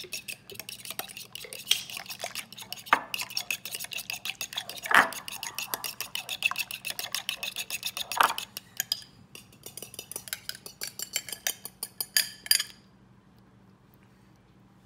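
A metal fork beating egg and cream in a small glass bowl: rapid ticking of the tines against the glass, with a few louder clinks. It stops about three-quarters of the way through.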